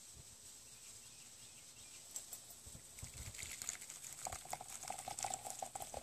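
Hot coffee poured from a glass wine bottle into a ceramic mug: a faint splashing patter starts about two seconds in, and a steady pouring tone joins it about four seconds in.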